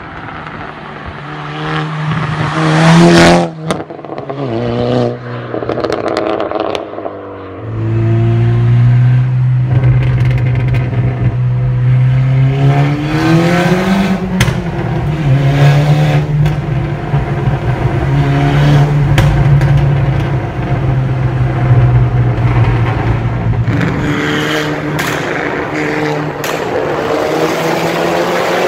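Tuned VW Polo R WRC 2.0-litre turbocharged four-cylinder with aftermarket downpipe and sport exhaust, accelerating hard and revving through the gears. Loud cracks and pops from the exhaust come on overrun fuel cut-off, with a burst about three seconds in and more near the end. The later part echoes in a road tunnel.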